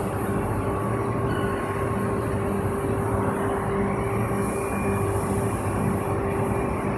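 PET preform injection molding machine running: a steady mechanical hum and rumble with a held tone over it, even in level throughout.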